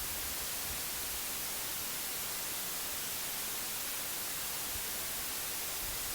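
Steady white noise: an even hiss with no change in level.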